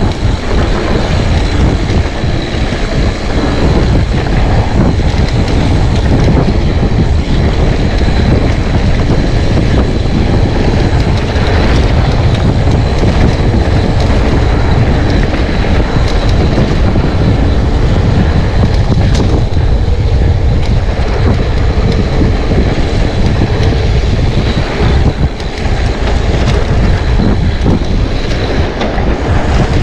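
Mountain bike riding along a trail, heard mainly as loud, steady wind noise on the camera's microphone, with tyre rumble and scattered small knocks and rattles from the bike.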